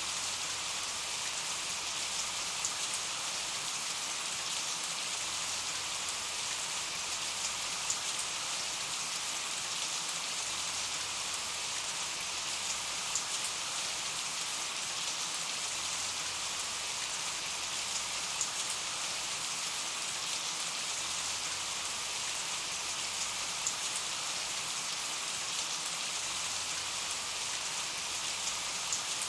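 Steady rain falling in an even hiss, with a few sharper drop ticks now and then.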